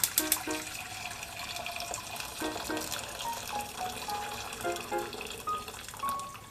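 Water from a kitchen tap running into a sink, a steady hiss, under light background music with short keyboard-like notes. A quick run of clicks comes in the first half second.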